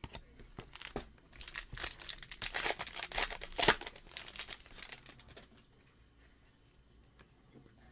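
Foil wrapper of a Panini Certified football card pack crinkling and tearing as it is ripped open by hand. A dense crackle of about four seconds, loudest near the middle, then it dies away.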